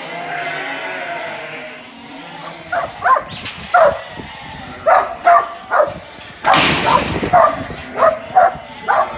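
Young kelpie working dog barking at sheep in the yards: about a dozen short, sharp barks, often in pairs, starting about two and a half seconds in. About six and a half seconds in there is a brief burst of clattering.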